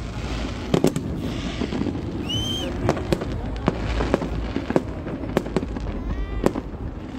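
Aerial fireworks bursting overhead, a string of sharp bangs at irregular intervals over a low rumble, with a short high whistle about two and a half seconds in.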